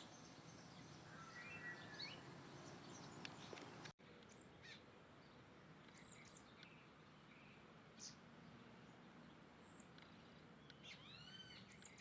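Faint birdsong: several short chirps and whistled calls from more than one bird over a quiet background hiss, with a sudden break in the sound about four seconds in.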